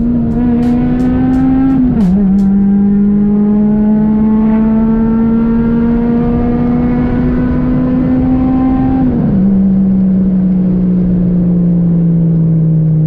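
Acura RSX's 2.0-litre four-cylinder engine, heard from inside the cabin, pulling up through the gears of its manual gearbox. The engine note climbs, drops sharply at an upshift about two seconds in, climbs slowly again, drops at a second upshift after about nine seconds, and then eases off gradually.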